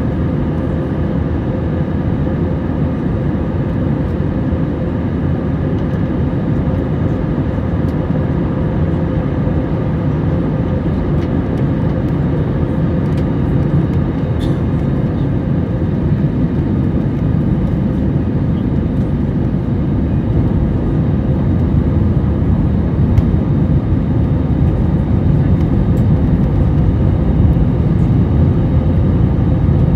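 Jet airliner cabin noise from a window seat beside the wing: the steady rush of engines and airflow with a low hum, growing a little louder toward the end.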